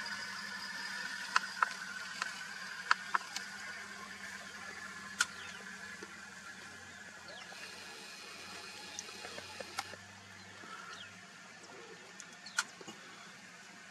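Open-air bush ambience: a steady high hiss that fades slowly, broken by about a dozen sharp, brief clicks scattered through it.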